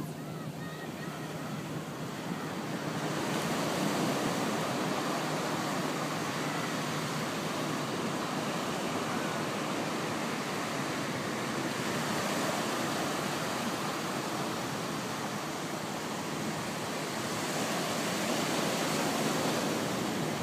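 Ocean surf breaking and washing up a sandy beach, a steady rush that swells a little about three seconds in and again near the end.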